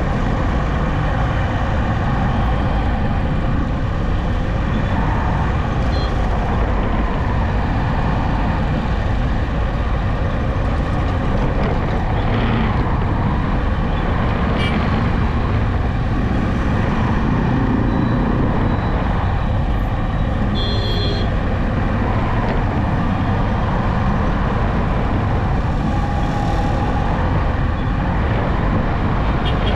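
Steady road noise from a vehicle driving along a highway: engine hum with tyre and wind noise, at an even level. A brief higher-pitched sound cuts in about twenty seconds in.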